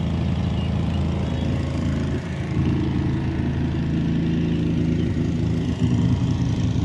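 Small petrol engine running steadily close by, a continuous low drone with an even pitch.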